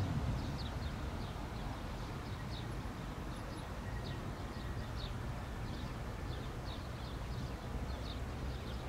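Airbus A320 on final approach, heard as a steady distant low rumble, with small birds chirping over it: short high falling chirps, about one or two a second.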